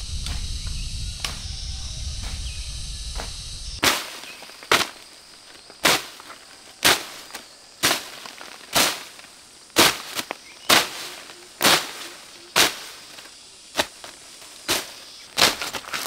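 Insects chirring over a low rumble for the first few seconds. Then a short-handled hoe chops into soil and weeds in sharp, steady strokes, about one a second.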